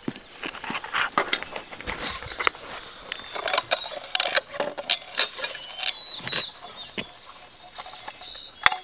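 Bird feeder rattling with rapid, irregular scratching and clicking as a trapped squirrel scrabbles inside it. A few short high squeaks come in the middle.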